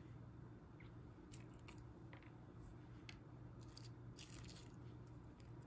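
Faint, scattered clicks of metal rings and clip-on earrings being set down on a tabletop, over a low steady hum.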